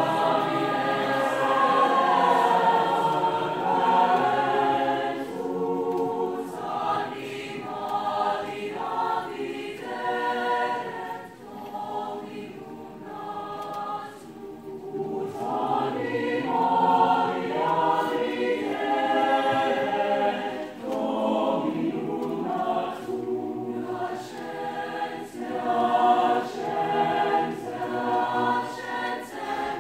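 Large mixed choir singing in parts, holding sustained chords that rise and fall, with short breaks between phrases.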